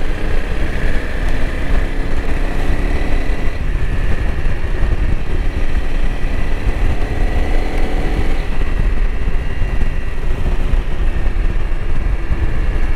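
Honda CRF300L Rally's single-cylinder engine running at road speed, heavily mixed with wind rumble on the microphone; the engine note shifts up and down with the throttle, rising a little between about six and eight seconds in.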